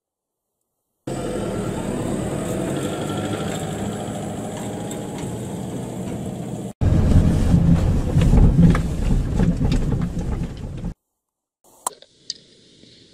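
A vehicle's engine running as it drives along a dirt track, a steady drone with a slowly rising pitch. About seven seconds in it cuts to a louder, deeper rumble that stops suddenly near eleven seconds, followed by a few faint clicks.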